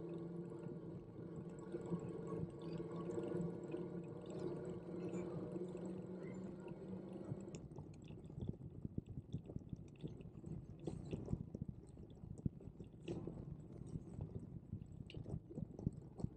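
A steady mechanical hum that cuts off suddenly about seven and a half seconds in, followed by irregular light clicking and rattling.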